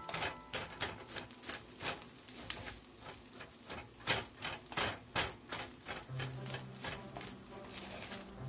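Wooden spatula stirring fried rice in a cast iron skillet: a quick, irregular run of scrapes and knocks against the pan, several a second.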